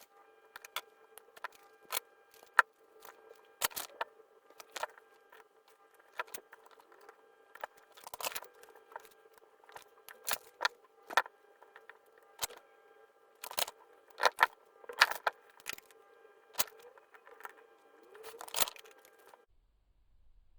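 Irregular sharp clicks and taps of small hard objects being handled, over a steady electrical hum; everything cuts off suddenly near the end.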